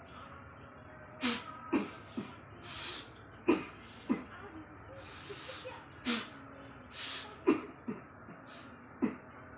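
A woman coughing in fits: about nine sharp coughs, mostly in pairs, with breathy sounds between. It is the chronic cough with an itchy throat that has not cleared for five months.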